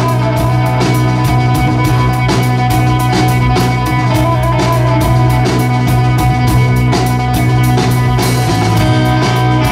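Live instrumental rock trio playing: electric guitar and bass guitar over a steadily pounding drum kit with constant cymbal hits, with a heavy low note held throughout.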